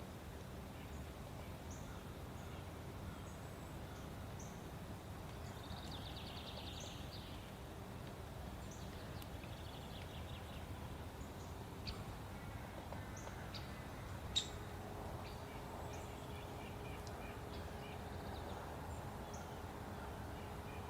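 Outdoor ambience: a low steady rumble with scattered short bird chirps, including a rapid trill about six seconds in. A single sharp click about fourteen seconds in.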